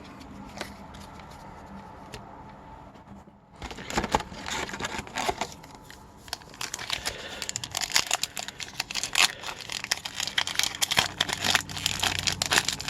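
Wrapper of a hockey card pack crinkling and tearing open, with dense irregular crackling that starts about three and a half seconds in after a quiet stretch.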